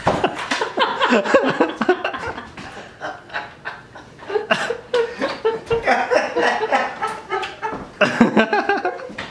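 People laughing and chuckling, with a few indistinct words mixed in. A higher-pitched laugh pulses through the middle.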